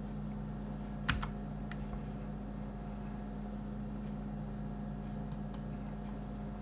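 A few short computer keyboard key clicks, a pair about a second in and a couple more near the end, over a steady low electrical hum.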